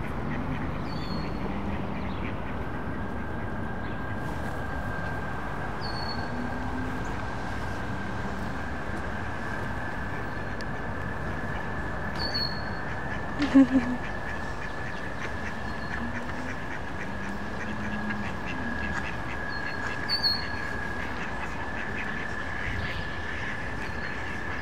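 Ducks calling: scattered low quacks from mallards, loudest as a short run of quacks about halfway through, mixed with thin, squeaky high calls from wood ducks now and then. A steady high whine starts a couple of seconds in and carries on underneath.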